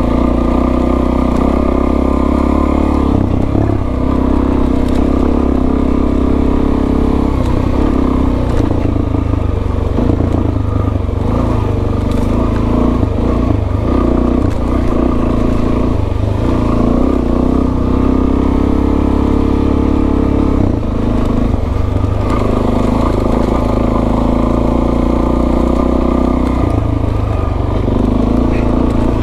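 Suzuki DRZ400S's single-cylinder four-stroke engine running as the dirt bike is ridden, its engine speed rising and falling every few seconds with the throttle.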